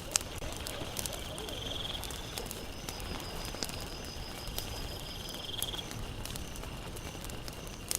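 Campfire crackling, with scattered sharp pops, a loud one just after the start and another at the very end. A high thin trill starts and stops in the background.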